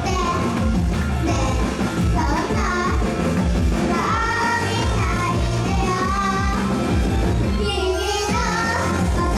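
Pop song with young girls singing over a loud backing track with a steady bass beat.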